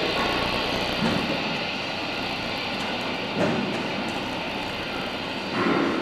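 Dense, steady roar of noise with faint held tones inside it and a few brief swells, from an experimental sound collage of field recordings and radio material.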